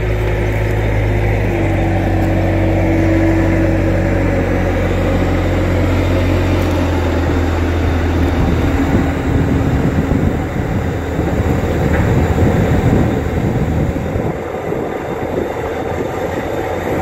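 Bobcat T300 compact track loader with its diesel engine running steadily. A whine rises about two seconds in, and after about seven seconds the sound turns rougher and more uneven as the machine works.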